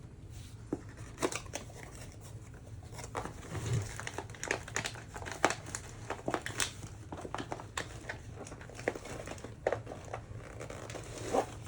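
Plastic packaging crinkling and rustling as it is handled, with scattered light clicks and taps.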